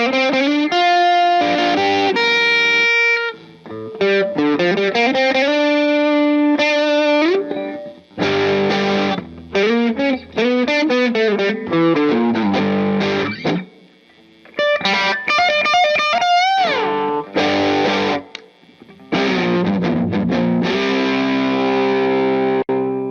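Squier Classic Vibe Starcaster electric guitar, fitted with an upgraded wiring harness and tone pots, played through an amplifier. Strummed chords and picked single-note phrases come with short pauses between them, and a couple of notes are bent upward about two-thirds of the way in.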